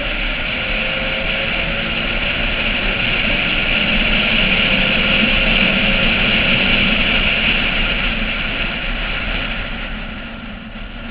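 Porsche 996 flat-six engine pulling hard on track, heard from a roof-mounted camera under a heavy rush of wind noise. It grows louder toward the middle and eases off about ten seconds in.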